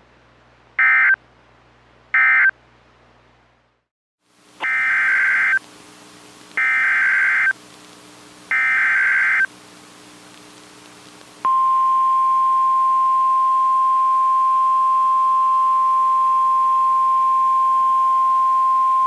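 NOAA Weather Radio emergency alert signals. First come the last two short end-of-message data bursts of one warning. After about a second of silence come three one-second SAME header bursts announcing the next severe thunderstorm warning. About eleven seconds in, the steady 1050 Hz warning alarm tone starts.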